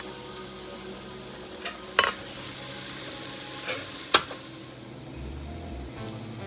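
Food sizzling as it fries in a pan, a steady hiss, with a few sharp clinks of a utensil, the loudest about two and four seconds in.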